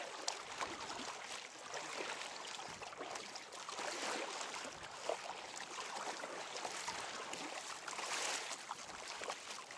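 Kayak paddle strokes dipping and splashing, with water rushing and lapping along the hull of a moving kayak.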